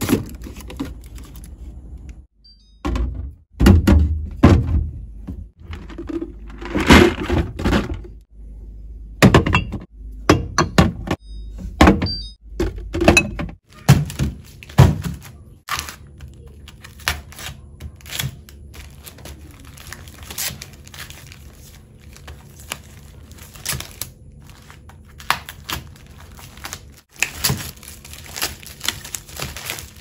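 Handling noise from food packs: drink boxes and bottles knocked and set into a refrigerator door bin with a run of thunks and clatters. Later, scissors snip and plastic shrink-wrap crinkles and tears as a pack of plastic jelly cups is cut open on a wooden table.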